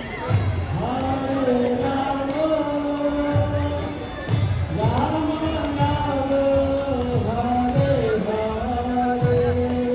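Music: a voice sings a slow melody of long held notes with sliding rises, over a low repeating beat.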